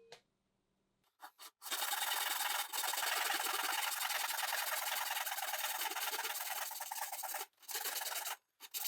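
Saw cutting through a piece of eucalyptus wood: a steady cutting noise for about six seconds, then two shorter cuts near the end.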